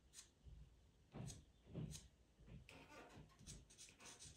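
Pastel pencil scratching faintly across pastel mat paper in short strokes, a few spaced apart at first, then a quick run of them near the end.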